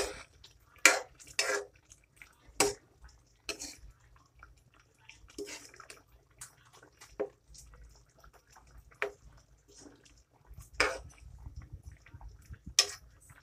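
Metal ladle stirring pork pieces in a saucy stew in an aluminium pan: separate clinks and scrapes against the pan every second or two, with wet sloshing of the sauce.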